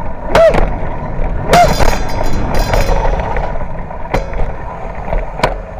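Wind and road rumble on a handheld camera's microphone while riding a bicycle along a street, with several sharp knocks and a burst of rattling.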